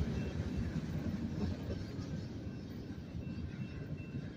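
Freight cars' wheels rumbling along the rails as the end of a Union Pacific manifest train rolls by, fading steadily as the last car moves away.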